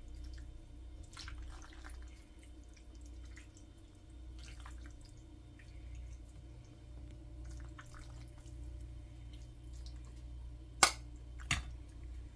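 Serving tongs lifting penne pasta out of a glass bowl onto a plate: faint scrapes, clicks and soft wet squelches, then two sharp clicks near the end. A steady low hum runs underneath.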